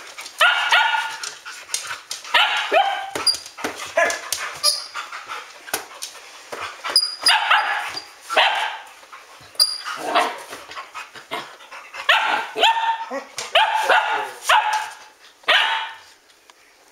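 Standard poodles barking in repeated bursts of a few sharp barks and yips, about every second or two.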